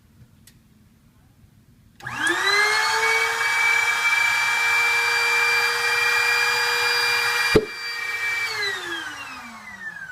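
Small electric air-mattress pump switched on about two seconds in, spinning up quickly to a loud steady whine as it blows cigar smoke into the engine's intake to find a vacuum leak. A sharp click comes near the end, the whine drops in level, then winds down with falling pitch.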